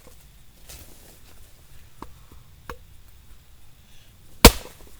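A tool striking a piece of dense oak firewood while it is being split: two light knocks, then about four and a half seconds in one loud, sharp chop.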